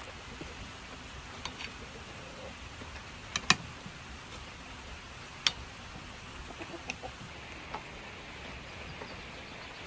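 Domestic hens clucking now and then over a steady background hush, with two sharp clicks about a third and a half of the way through.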